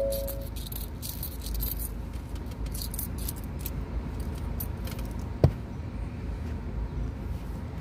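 Small metal objects jingling and clinking, densest in the first two seconds, as loose change is searched for inside a car. A single sharp thump about five and a half seconds in is the loudest sound, over a steady low hum.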